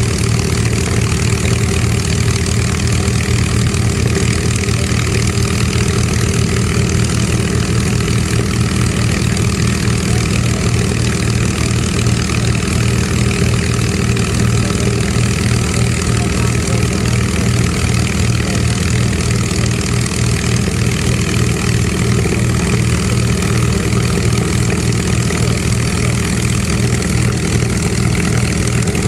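P-51 Mustang's V-12 piston engine idling steadily, a loud, even pulsing run with no change in speed.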